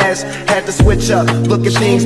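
Background music with a steady beat: a deep bass hit about every second and a quarter, with busy melodic layers above it.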